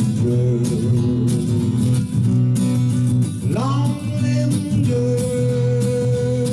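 Solo live performance: strummed guitar chords with a wordless vocal that slides up about halfway through and then holds a long note near the end.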